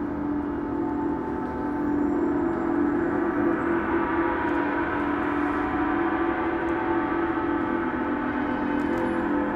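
Large hanging gong played with a mallet, giving a sustained, shimmering wash of many overlapping tones. It builds over the first two seconds and then holds, with a wavering hum low in the middle.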